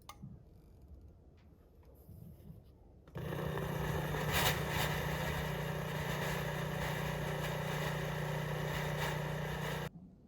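Boman steam iron putting out steam: a steady hiss over a buzzing pump hum that starts about three seconds in and cuts off suddenly near the end, after a few faint clicks.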